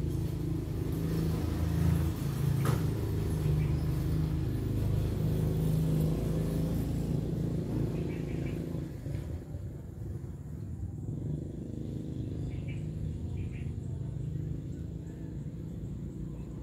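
Low engine rumble of a vehicle, louder for the first nine seconds or so and then fainter, with a single sharp click about three seconds in.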